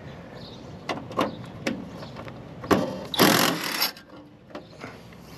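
Handling noise at an outdoor AC condenser unit's sheet-metal service panel: a few sharp knocks and clicks, then a loud scrape lasting under a second a little after three seconds in.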